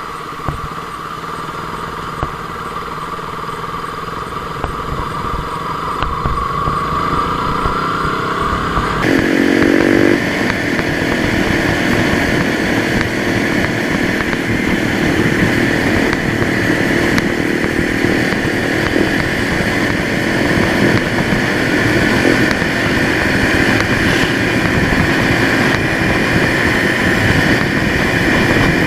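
KTM motorcycle engine running on the move, with wind noise on the microphone. The engine note climbs, changes abruptly about nine seconds in, and then runs louder as the wind noise builds with speed.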